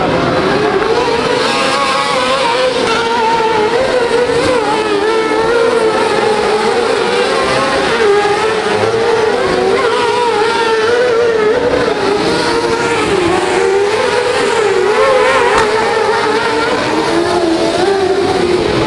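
Several autocross sprint-car buggies racing together, their engines revving hard, with the pitch rising and falling continually.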